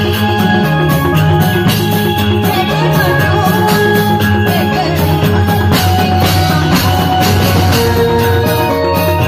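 Indramayu reog ensemble music for the dance: drums keeping a steady beat under sustained melodic instrument notes.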